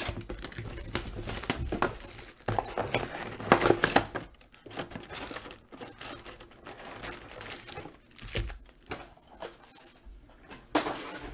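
Plastic shrink wrap being torn off a trading-card box and crinkled, then foil card packs rustling as they are lifted out and stacked. The crackling is densest and loudest in the first four seconds, then comes in sparser bursts.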